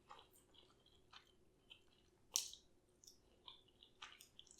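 Close-up chewing of a Cheetos-coated chicken wing: scattered soft, wet mouth clicks and smacks, with one louder crunch about two and a half seconds in.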